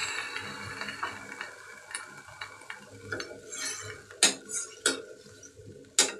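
Steel spoon stirring raw mango pieces in an iron kadai, clinking and scraping against the pan, with the sharpest knocks about four seconds in and near the end. A faint sizzle of the freshly added water dies away in the first second or two.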